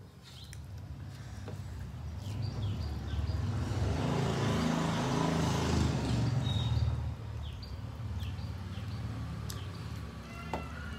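A vehicle passing by: a low engine rumble that grows louder toward the middle and then fades, with birds chirping now and then.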